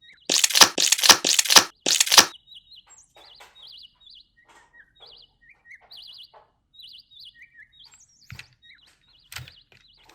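Slime or clay being squeezed and kneaded, a quick run of loud sticky crackles and pops over about the first two seconds. After that come faint, short bird-like chirps.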